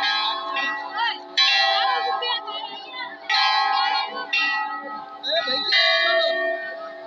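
Hindu temple bells being struck, a new clang every one to two seconds, each ringing on and overlapping the last, with voices in the background.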